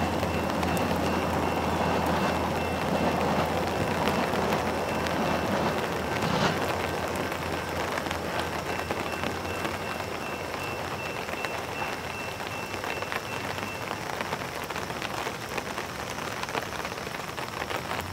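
Steady rain falling, with the rumble of a westbound VIA passenger train receding and fading out over the first several seconds.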